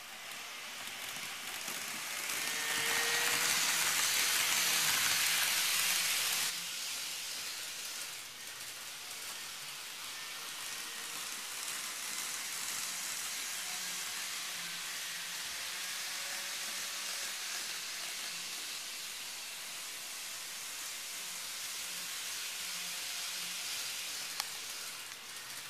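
TOMIX N-gauge E259 series Narita Express model train running on its track, a steady hissing rattle of wheels and motor. It is louder from about two seconds in and drops abruptly about six and a half seconds in; one sharp click near the end.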